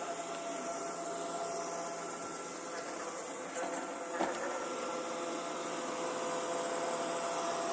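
Viomi vacuum cleaner running with a steady whirr and a few held whining tones, the abnormal noise its owner calls bad. A single sharp knock a little past four seconds in, after which a lower whine joins.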